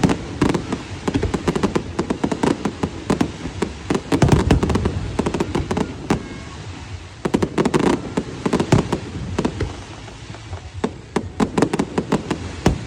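Fireworks going off in dense volleys of sharp bangs and crackles, with short lulls about six and ten seconds in.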